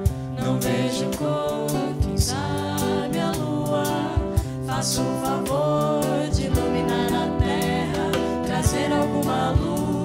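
Live band playing a song: a woman and a man singing together over acoustic and electric guitars and a drum kit, with frequent drum and cymbal hits.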